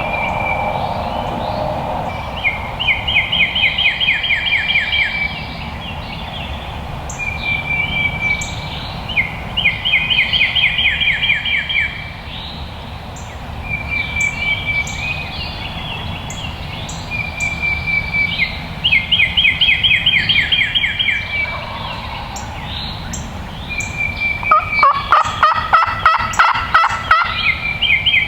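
Birds calling in the woods: a high steady whistled note and a fast rattling trill, repeated about every five seconds. Near the end comes a lower, louder rattling call, a wild turkey gobbling.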